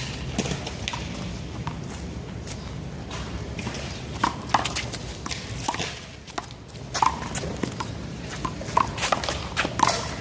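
A one-wall handball rally: the small rubber ball is slapped by hand and smacks off the wall and the ground in quick, irregular hits that grow sharper and more frequent about halfway through.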